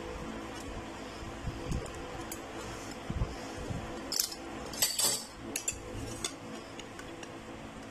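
Metal utensils, a pizza cutter wheel and a pie server, scraping and clinking against a plate as a pizza is cut and a slice is lifted. The sharpest clinks come about four to five seconds in.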